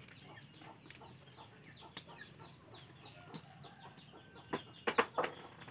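Chickens cheeping and clucking faintly in the background: a string of short, high, falling peeps. A few sharp taps about four and a half to five seconds in.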